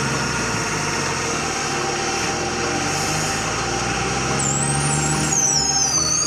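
Truck engine sound effect running steadily, with high wavering whistles coming in during the last couple of seconds.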